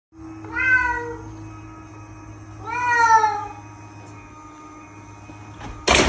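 Bengal cat meowing twice, two drawn-out calls a couple of seconds apart, then a sudden loud thud and scrabble near the end as it leaps up onto the top of the refrigerator.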